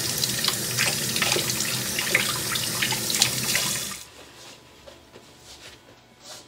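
Kitchen tap running into the sink while hands are washed under it, shut off abruptly about four seconds in. A few faint handling sounds follow.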